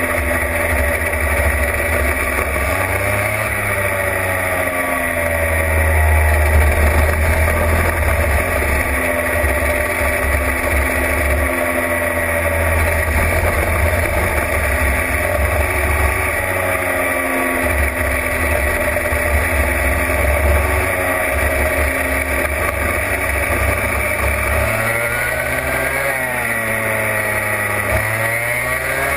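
Racing kart engine at race pace, heard onboard, its revs repeatedly rising on the straights and dropping into the corners, with the engines of other karts running close by.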